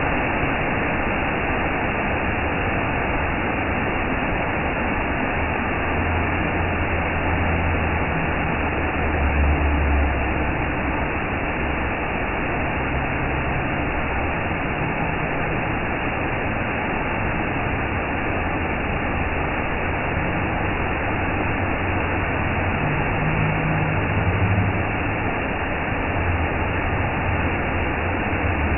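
Steady noise of a moving vehicle, with a low rumble that swells now and then.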